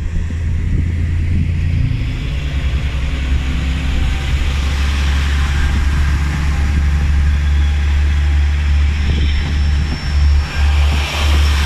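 KiHa 40-series diesel railcar departing, its diesel engine under power with a loud, steady low drone. Hiss from the running gear rises about halfway through and again near the end as the train gathers speed.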